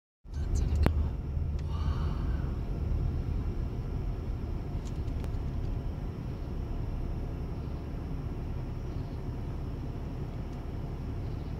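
Steady low rumbling outdoor background noise, with a sharp click about a second in.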